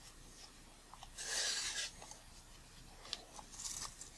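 Steel lens spanner tips scraping and rubbing against a tight brass retaining ring as it is worked loose: a few short scrapes, the loudest about a second in, with a light click about three seconds in.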